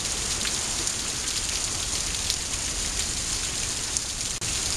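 Heavy rain pouring steadily onto the street, with a few sharper drop taps standing out.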